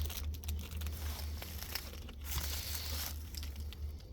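Rustling and crinkling close to the microphone, with scattered sharp clicks and a longer patch of rustling about two seconds in, over a steady low hum.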